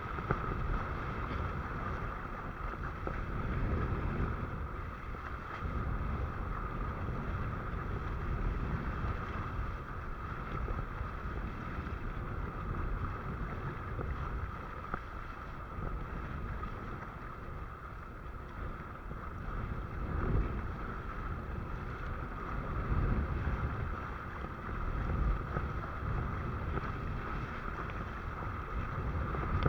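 Wind buffeting the microphone over the rush of water past a windsurf board under sail, a steady gusty rumble that swells and eases.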